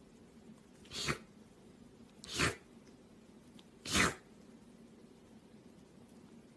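A pet sneezing three times, about a second and a half apart, each sneeze short and sharp.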